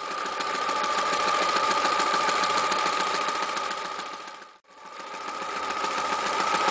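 Frister Rossmann Cub 4 electric sewing machine running at speed and stitching through cloth, a steady motor whine over the rapid needle strokes. It gathers speed at the start, cuts out abruptly about four and a half seconds in, then starts again and runs back up to speed.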